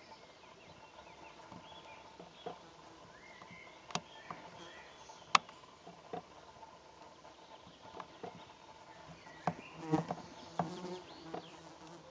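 Faint outdoor ambience with a soft steady buzz, broken by scattered sharp clicks. The loudest click comes about five seconds in, and a short cluster of knocks follows near ten seconds.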